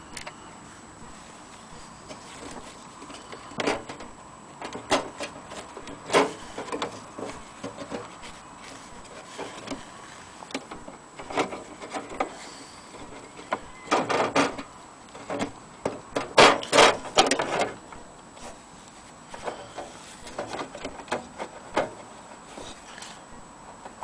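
Wooden case of an antique Seth Thomas wall clock being handled: irregular knocks, clicks and rubbing, with the busiest and loudest stretch a little past halfway.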